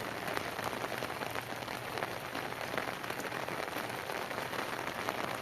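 Heavy rain falling steadily, with many separate drop hits heard through the hiss.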